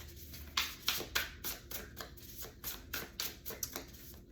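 A tarot deck being shuffled by hand: a quick, uneven run of short card slaps and riffles, about three or four a second.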